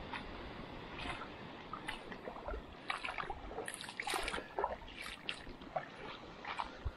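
Footsteps on damp beach sand, short irregular scrunches about two a second, over a steady hiss of surf.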